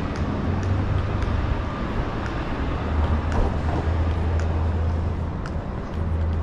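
City street traffic: vehicle engines running with a steady low hum and constant road noise, plus faint ticks at a regular pace.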